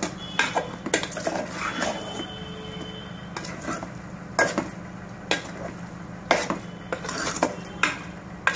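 A spoon stirring raw chicken pieces and masala in a metal pot, clinking and scraping against the pot at irregular intervals, with a steady low hum underneath.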